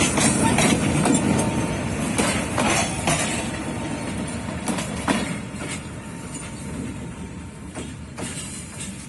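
Freight train of loaded flat wagons rolling along the track behind a D19E diesel locomotive: a low rumble with irregular wheel clacks over the rail joints, fading steadily as the train draws away.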